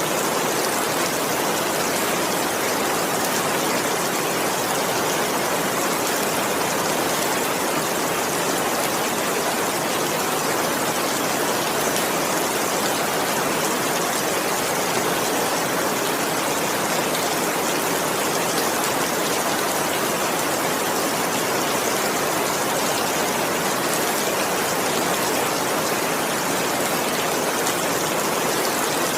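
Heavy rain falling in a steady, even hiss, with no thunder.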